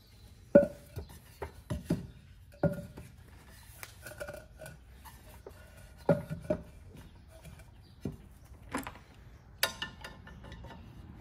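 About a dozen sharp metallic clinks and knocks, some with a brief ring, the loudest about half a second in, as an aluminum three-blade boat propeller is wedged with a wooden board and its retaining nut is worked with pliers on the sterndrive's prop shaft.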